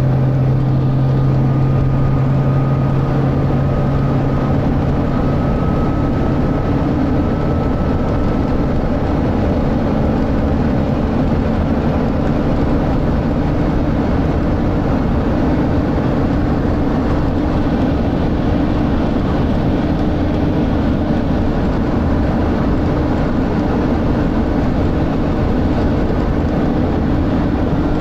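Volvo B9TL double-decker bus heard from inside the saloon on the move, its six-cylinder diesel running steadily under load. The low engine note gives way to a higher one about eight to ten seconds in.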